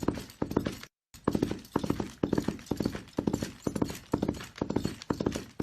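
Horse galloping: hooves striking in quick repeating clusters of beats, about two clusters a second. The sound cuts out completely for a moment about a second in, then the gallop resumes.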